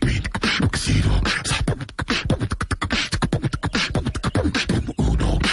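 A rapid, dense stream of sharp clicks and low thumps, like beatboxing.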